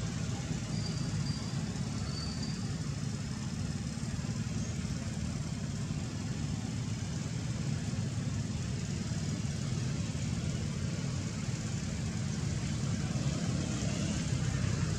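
Steady low rumble of an idling engine, like a motor vehicle running, with a faint thin high chirp or two about a second in.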